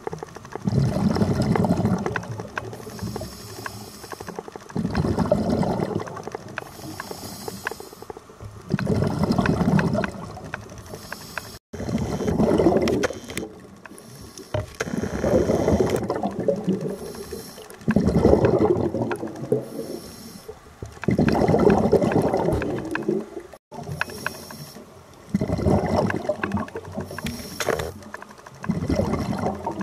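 Scuba diver breathing underwater through a regulator: a hiss on each inhale, then a burst of exhaled bubbles lasting about two seconds, about eight breaths in a steady rhythm every three to four seconds.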